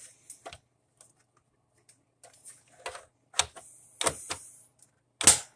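Plastic clicks and knocks of a wall-mounted foam soap dispenser's cover being fitted and pressed shut, with some scraping of plastic between them. The loudest click, near the end, is the cover snapping closed.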